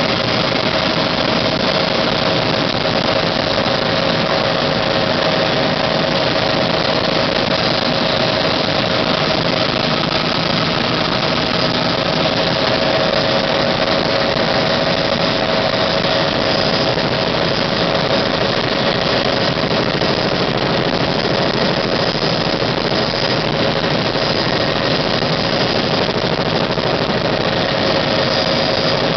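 Bell 206 JetRanger helicopter in flight, heard from inside the cabin: the single turbine engine and rotors make a steady, unbroken drone with a constant hum at a fixed pitch.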